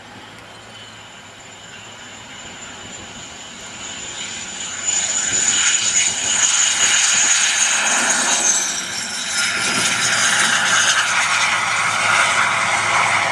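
Canadair CT-114 Tutor jet landing, its single turbojet engine whining. The sound grows over the first few seconds, is loud from about five seconds in, and the high whine falls in pitch as the jet passes and rolls out on the runway.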